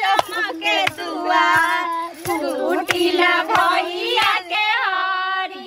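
Several women singing a Bhojpuri folk song together, with dull thuds of a wooden pestle pounding a cow-dung Godhan figure on the ground about every two-thirds of a second.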